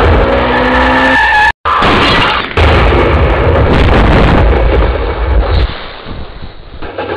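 Loud, distorted thunder sound effect: a heavy rumble with a pitched tone over it in the first second, a brief dropout about a second and a half in, then another heavy rumble that fades away after about five and a half seconds.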